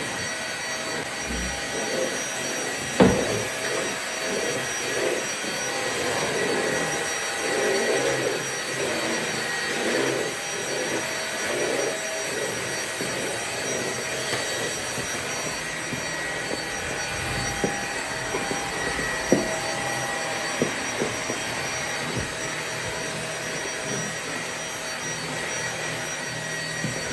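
Vacuum cleaner running steadily, a dense rushing noise with a faint high whine. A sharp knock comes about three seconds in, and a few fainter ticks follow later.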